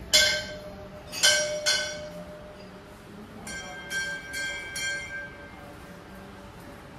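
Hanging brass temple bells rung by hand: three sharp strikes in the first two seconds, then a quicker run of four softer strikes from about three and a half seconds in, each leaving a clear ringing tone that dies away.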